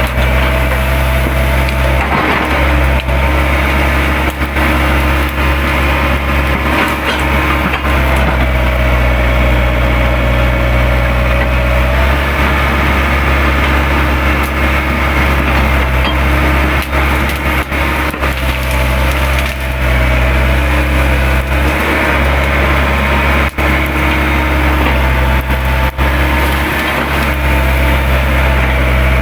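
Excavator's diesel engine running steadily under load, its hydraulic whine wavering in pitch as the arm works, while brush and branches crack and splinter under the bucket.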